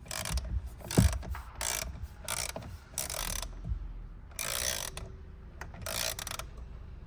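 Hand socket ratchet clicking in repeated short strokes as a steering wheel bolt is worked loose, with one sharp knock about a second in.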